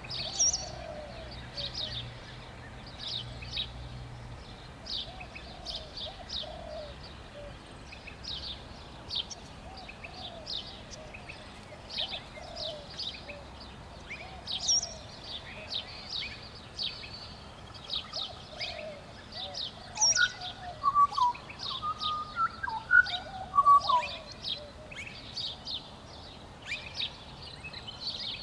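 Pied butcherbird singing a run of clear whistled notes about two-thirds of the way through. Beneath it, other birds chirp in short high notes throughout, and low short notes repeat every couple of seconds.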